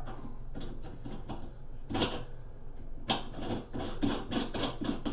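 Metal pipe cap being screwed by hand onto the threaded top of a metal pipe: small clicks and scrapes of the threads, with two sharper clicks about two and three seconds in.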